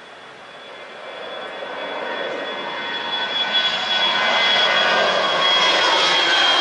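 Airbus A320 jet airliner's engines at climb power just after takeoff, growing steadily louder as the aircraft passes over. A high steady whine sits on top of the jet noise.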